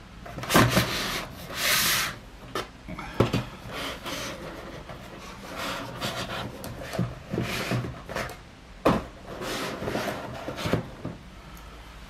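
Cardboard box and items being handled and slid on a wooden tabletop: rubbing and scraping, loudest in the first two seconds, with several sharp knocks.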